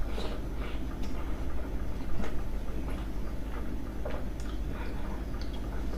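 A person chewing mouthfuls of steamed dumplings, with short mouth clicks and smacks at irregular intervals over a steady low hum.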